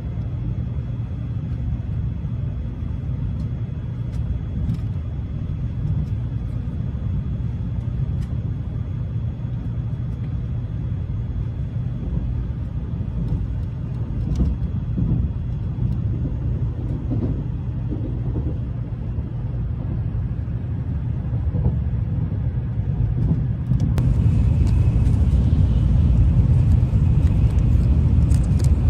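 Steady low rumble of a moving vehicle. About 24 s in it gets louder and a hiss comes in over it.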